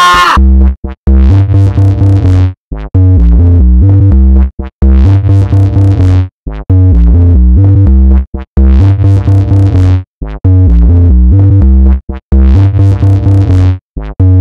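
Loud, heavily clipped electronic dance music: a deep distorted synthesizer bass and keyboard riff plays in short chopped phrases, cutting out and restarting every second or two.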